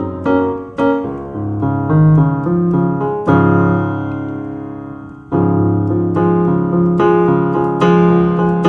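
Solo piano music, single notes and chords struck in turn. About halfway through, one chord is held and fades for roughly two seconds before the playing picks up again.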